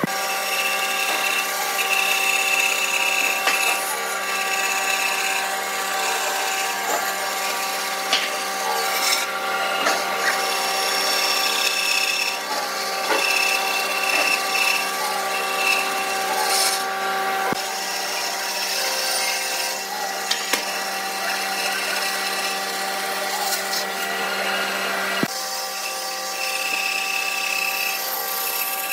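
Bandsaw running steadily, its blade cutting a curved line through a thick glued-up wooden panel: a constant motor hum with the hiss of the blade in the wood.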